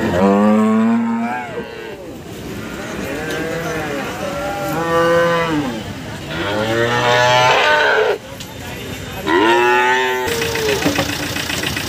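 Cattle mooing repeatedly: about five long, loud moos, one after another, over the first ten seconds.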